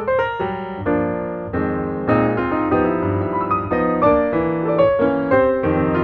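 Piano music: a melody of changing notes over held chords.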